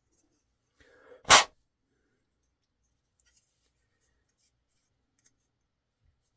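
A single person's sneeze, one short loud burst about a second in after a brief intake. Otherwise near silence.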